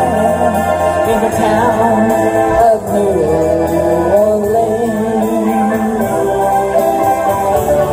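A woman singing karaoke into a microphone over a backing music track.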